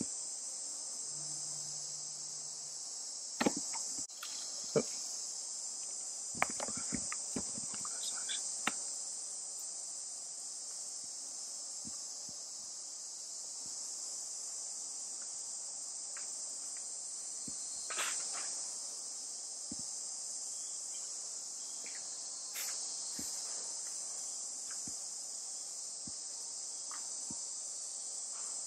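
Insects calling in a steady, high-pitched drone, with scattered clicks and knocks, most of them in the first few seconds and one more about 18 seconds in.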